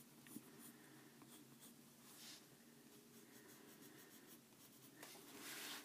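Faint scratching of a Prismacolor Premier colored pencil shading on coloring-book paper, in soft strokes, a little louder about two seconds in and near the end.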